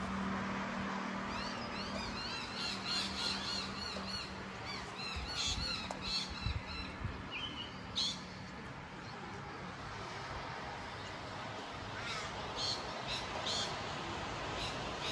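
Steady hiss of heavy rain, with birds calling over it in quick runs of short repeated chirps, busiest a couple of seconds in and again near the end.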